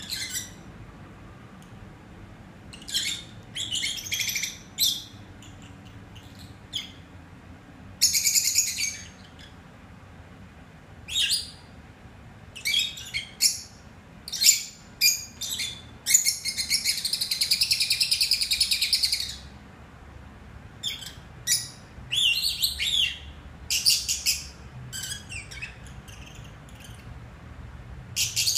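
Peach-faced lovebirds chirping: bursts of short, high-pitched calls with brief pauses between them, and one longer run of continuous chatter lasting about three seconds about halfway through.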